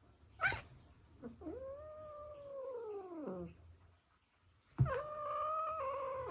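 Ragdoll cat giving angry warning yowls. A sharp sound comes about half a second in, then two long, drawn-out yowls: the first rises and then falls in pitch, and the second starts suddenly near the end.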